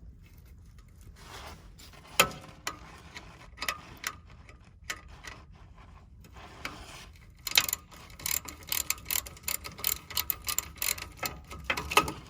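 Ratchet and 13 mm socket clicking while a bolt is turned out. Scattered knocks and clicks come first, then a quick run of clicks, about four a second, from a little past halfway.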